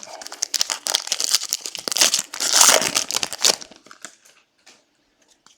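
Foil trading-card pack wrapper being torn open and crinkled for about three and a half seconds, then a few faint rustles.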